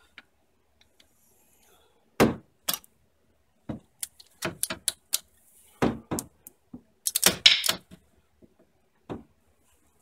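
Hand ratchet with an Allen socket turning the hub-to-knuckle bolts: irregular sharp metallic clicks and knocks, some in quick clusters, the loudest cluster about seven seconds in.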